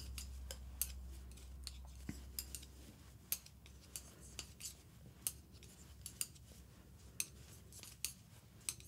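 Metal-tipped knitting needles clicking against each other while knitting and purling a row of 1x1 rib: light, sharp, irregular clicks about two a second.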